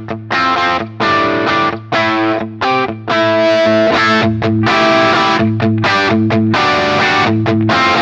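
Electric guitar played through a J.Rockett Jeff Archer, a Klon-type overdrive pedal. For about three seconds it plays short, choppy chord stabs; after that the chords are held and ring on.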